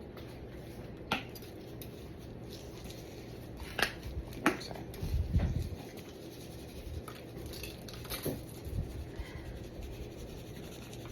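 Scattered sharp clicks and light taps with a dull low thump about five seconds in: a lemon pepper seasoning container being handled and shaken over the meat.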